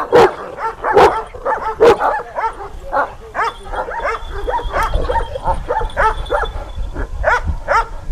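Turkish shepherd (Kangal-type) dogs barking: three loud barks in the first two seconds, then a quick run of shorter, higher yelping barks, several a second.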